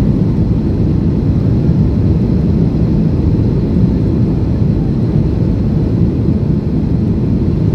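Steady low rumble of Boeing 737 cabin noise on approach, the jet engines and airflow over the airframe heard from inside the cabin, with flaps extended.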